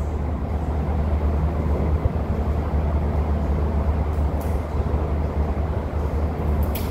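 Steady low rumble and hum of room noise, with a few faint ticks.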